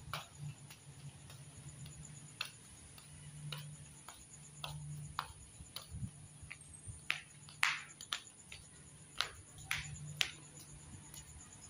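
Footsteps on a hard floor while walking, a sharp tap roughly twice a second, over a faint low hum.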